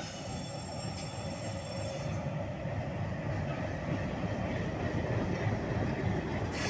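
Diesel locomotive passing slowly at close range, its engine running and its wheels rolling on the rails, growing louder as it draws level. A thin, high wheel squeal sounds over the first two seconds.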